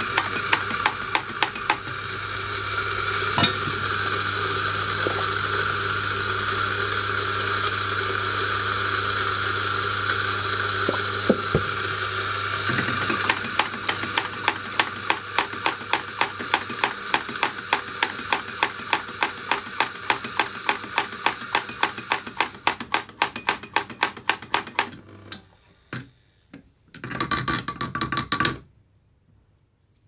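Mazzer Mini doser coffee grinder grinding espresso: its motor runs steadily while the doser lever is flicked in rapid, even clicks. About halfway through the motor hum drops away, and the lever clicking goes on, getting quieter, until near the end, with one last short burst of clicks.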